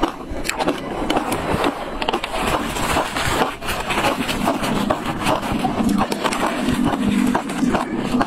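Close-up crunching of a mouthful of shaved ice being chewed, with many sharp crunches coming in quick, irregular succession.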